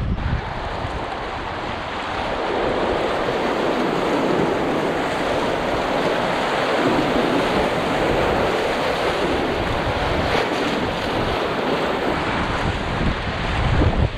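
Rushing, churning white water of a river rapid splashing around an inflatable kayak as it runs through, louder from about two seconds in, with wind buffeting the microphone.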